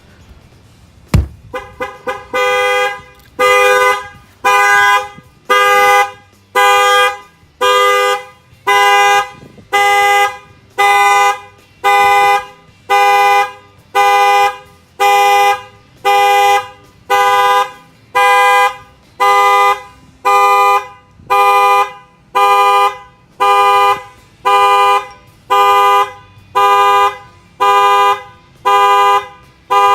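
Ford F-250's horn blasting about once a second, pulsed by the Excalibur 1670 alarm: the alarm has been triggered. A sharp knock and a few short chirps come about a second in, just before the honking settles into its steady rhythm.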